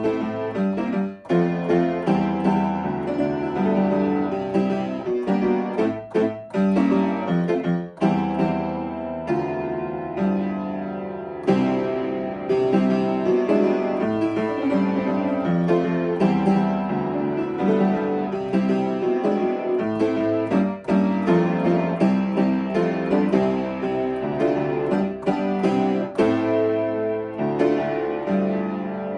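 Upright piano being played with both hands, many notes struck in quick succession over a continuous bass, with brief breaks between phrases.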